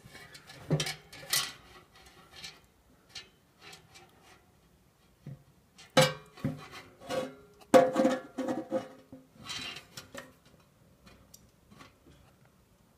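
Plastic and metal clicks and clatter from a toaster's lever and bread-carriage mechanism being worked by hand, with two louder clacks about six and eight seconds in, the second ringing briefly.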